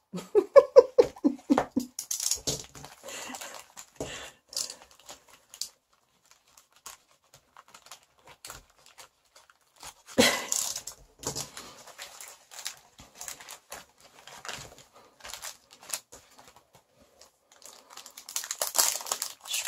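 Crinkling and rustling of a foil-and-plastic packet being cut open with a snap-off utility knife and unwrapped by hand, in scattered bursts with small clicks and taps; the loudest crinkle comes about ten seconds in.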